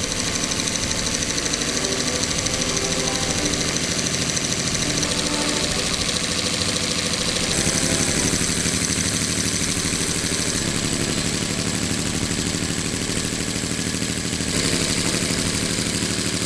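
Handmade scale-model V12 engine running steadily at a fast, even beat, its small four-stroke valve gear clattering along with it.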